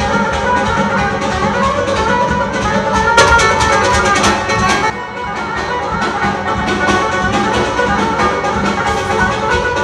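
Amplified live music led by a long-necked plucked lute playing a busy melody, with a drum keeping a steady beat underneath; it eases off briefly about halfway through.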